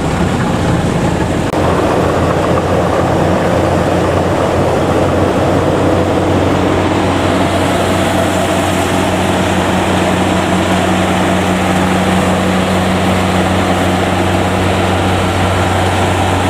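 Combine harvester's diesel engine running steadily with a constant low hum, stepping up a little in loudness about a second and a half in.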